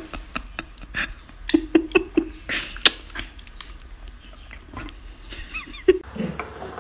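Dalmatian making short low whines, with clicks and a loud breathy huff about two and a half seconds in.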